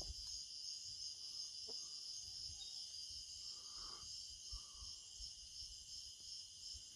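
Steady chorus of night insects, a continuous high-pitched shrilling with a slight pulse, with a few faint low bumps underneath.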